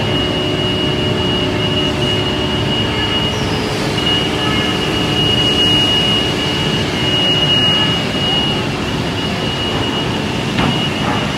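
Steady noise of woodworking machinery running on a factory floor, with a constant high-pitched whine and a short knock near the end.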